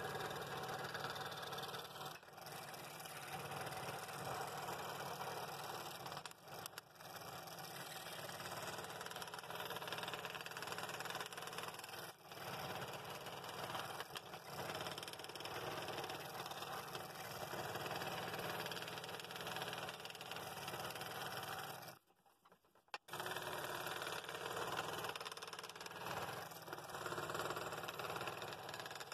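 Scroll saw running, its blade cutting through 3/4-inch walnut in a steady drone. The sound breaks off for about a second roughly three quarters of the way through, then carries on.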